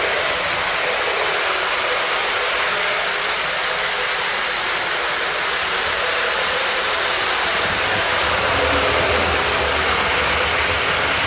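Onboard sound system of a Lionel O-scale CSX Dash 8 diesel locomotive playing its recorded diesel engine sound, a steady run whose low rumble grows stronger about seven and a half seconds in.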